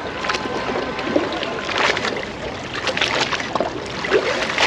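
Small waves lapping and splashing irregularly at the water's edge.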